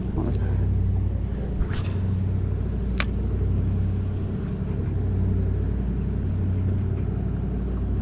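Boat motor running with a steady low hum, with a few sharp ticks in the first three seconds.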